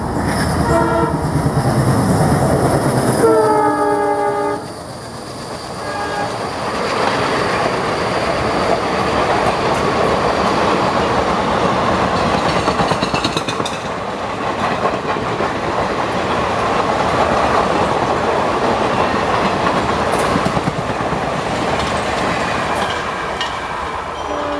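ALCo-design WDM3D diesel locomotive sounding its horn twice in the first few seconds, with a short blast then a longer one, as it approaches and passes. Its express coaches then run past with a steady rumble and clickety-clack of wheels over rail joints.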